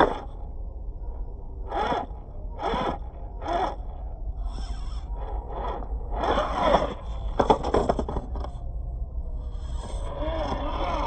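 Electric motor and gearbox of a scale RC crawler truck whining in repeated throttle bursts, the pitch rising and falling, as it claws up a steep dirt bank, with tyres scraping on the dirt. Three short bursts come about a second apart, then longer ones follow.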